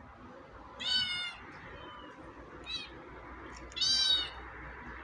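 Kittens meowing: three high calls, the first and last longer, a short one between.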